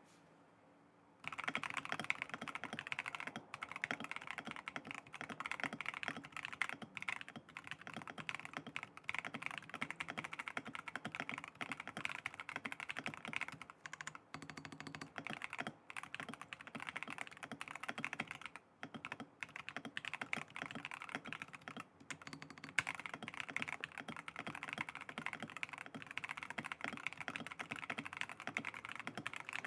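Continuous fast typing on a Razer BlackWidow V4 75% mechanical keyboard with Razer Orange tactile switches, a gasket-mounted FR4 plate and PBT dye-sub keycaps. It is a rapid stream of keystrokes that starts about a second in, with a few brief pauses.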